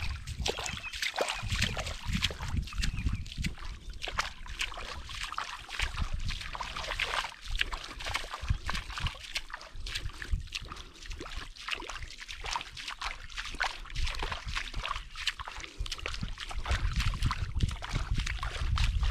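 Feet wading through shallow water over a sandy channel bed: irregular sloshing and small splashes, with a low rumble underneath.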